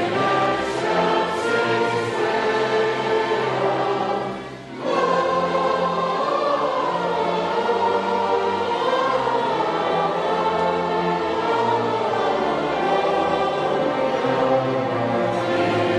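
A choir singing in sustained, melodic lines, with a short break about four and a half seconds in.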